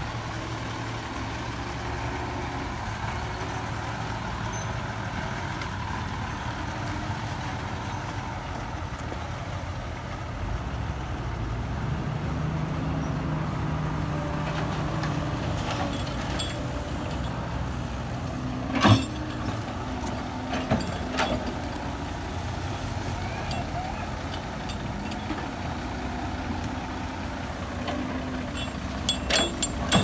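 Diesel engines of a dump truck and a crawler excavator running steadily. A single loud knock comes about two-thirds of the way through and a cluster of knocks comes at the end, as earth and the excavator's bucket strike the steel truck bed during loading.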